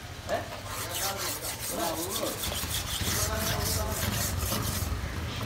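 A large knife blade scraped rapidly back and forth across a wooden chopping block, making a run of quick, even rasping strokes that stops about four and a half seconds in.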